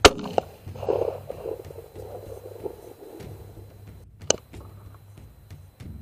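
.204 Ruger rifle shot: one sharp, loud report right at the start, dying away over about a second and a half. A second, quieter sharp crack comes about four seconds in.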